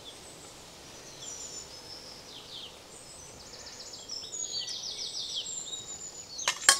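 Birds chirping in quick high-pitched runs over a faint steady outdoor hiss, busier in the second half. There is one sharp click near the end.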